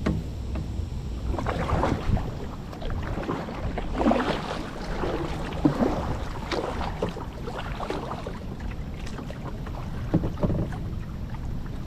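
Water splashing and sloshing around a kayak in a swell every couple of seconds, over a low rumble of wind on the microphone.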